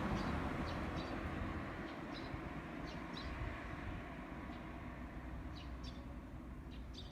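A low car engine and exhaust rumble fading gradually, with a few short bird chirps over it.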